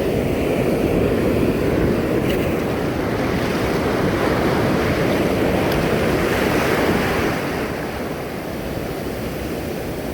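Ocean surf washing steadily, with wind on the microphone; the rushing noise eases a little about seven seconds in.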